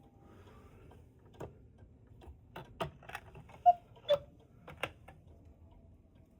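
Vintage German Black Forest cuckoo clock giving a run of irregular clicks and knocks, the two loudest a little past halfway.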